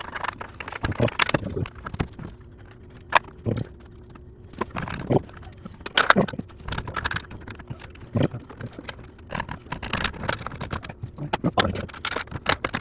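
Irregular clanks, clicks and knocks of hand tools and metal parts being handled, a dozen or so sharp hits spread unevenly.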